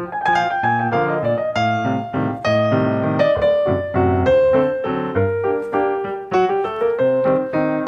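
Solo piano music, a gentle melody of struck notes over lower chords.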